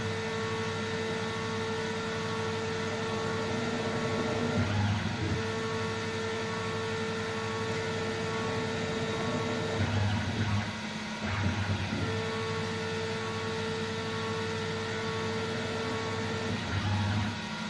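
Denford Cyclone CNC lathe boring out a hole in 6082-T6 aluminium with a boring bar, cutting dry: the roughing-out and finish-boring of the bore. Steady spindle and cutting noise with a steady whine that drops out and comes back a few times.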